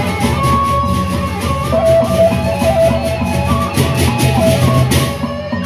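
Sasak gendang beleq gamelan playing: large barrel drums and gongs in the low range, ceng-ceng hand cymbals clashing in a steady rhythm, and a melody line on top.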